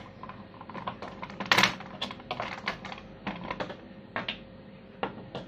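Small plastic Kinder Joy spinning tops clicking and clattering as they are handled and set down on a hard tabletop: irregular light clicks, the loudest about a second and a half in.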